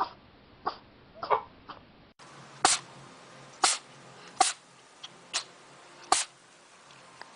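Cats sneezing in short, sharp bursts: a few quick sneezes, then a second cat sneezing about five times, roughly once a second.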